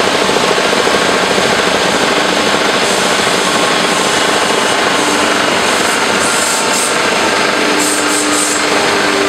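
Woodworking CNC router line and its bag dust collector running with a loud, steady machine din, with several short high hisses in the last few seconds.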